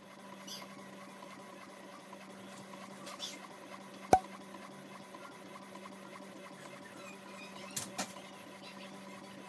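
A faint, steady machine hum, with a single sharp click about four seconds in and two light ticks near eight seconds.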